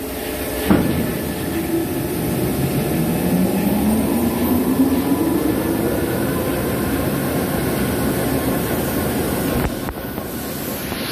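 CNC vertical turning lathe running with a steady low rumble. A sharp click comes about a second in, then a drive whine rises in pitch over the next few seconds.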